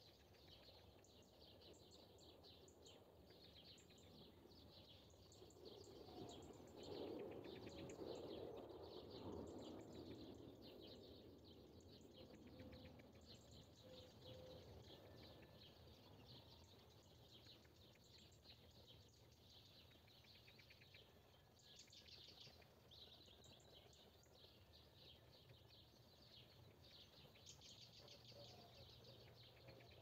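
Faint dawn chorus of many small wild birds chirping and trilling at once. A low, dull rush swells for a few seconds about a fifth of the way in, then fades.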